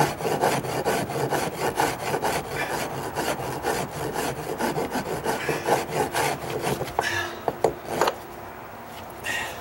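Hand rasp scraping over a wooden deck stair tread in fast back-and-forth strokes, smoothing out a gouge. The strokes stop about seven seconds in, followed by a couple of knocks.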